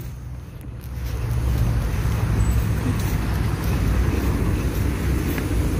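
Road traffic passing: a steady rush and rumble of vehicles that grows louder about a second in.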